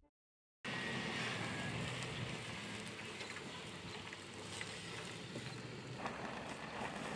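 Steady rushing outdoor noise with scattered light clicks and rustles of people working nearby, cutting in abruptly about half a second in.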